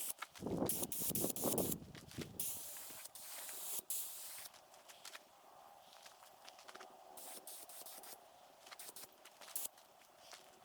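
Paint spray gun hissing in bursts as metallic paint is misted onto an aluminum boat hull, with a loud low rumble in the first two seconds and scattered light clicks.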